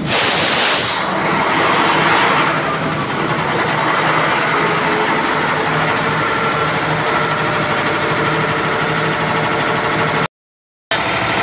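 Ship's diesel generator engine running steadily in the engine room, with a loud burst of hissing for about the first second and a weaker hiss around two seconds in. The sound cuts out completely for about half a second near the end.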